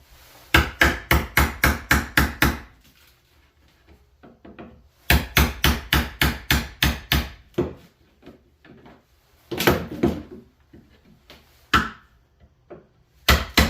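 Hammer blows on a nailed wooden shipping crate, in quick runs of about four strikes a second: two runs of roughly nine, then a few scattered blows and another run starting near the end.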